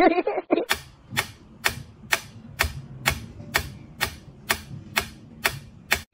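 Mechanical pyramid metronome ticking steadily, about two clicks a second, as its pendulum swings. A brief wavering voice-like sound is heard in the first half second, before the ticking starts.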